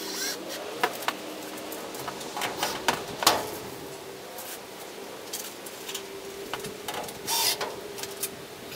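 A foil-faced panel being handled and screwed to a wooden frame: scattered clicks and knocks, the loudest about three seconds in, and a short whirring burst of a screw being driven near the end.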